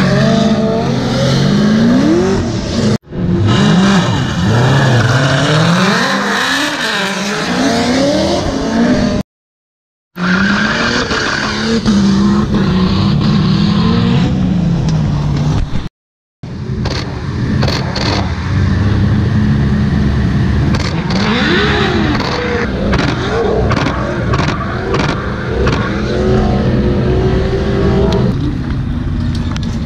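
Drift car engines revving hard, their pitch rising and falling again and again, in a run of edited clips. The sound cuts off abruptly into brief silences three times.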